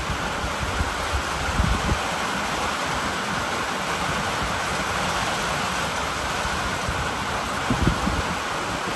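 Heavy rain pouring steadily, an even hiss, with a brief low thump about one and a half seconds in and another near the end.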